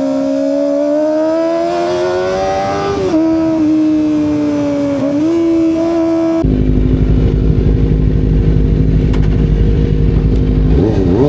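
Kawasaki ZX25R SE's 250 cc inline-four, breathing through an Austin Racing aftermarket exhaust, under way at a steady high-pitched note. The note rises gently, drops sharply about three seconds in as the throttle or gear changes, and dips and picks up again. About six seconds in the sound turns abruptly into a loud low rumble.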